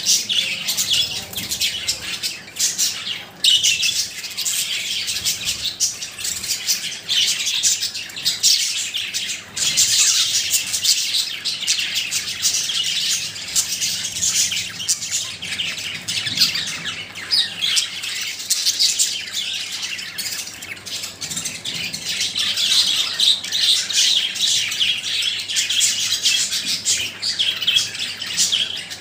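Pet budgerigars (budgies) chirping and singing in a busy, unbroken chatter.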